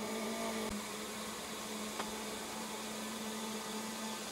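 A steady electrical hum over a faint hiss, with two small ticks, one early and one about two seconds in.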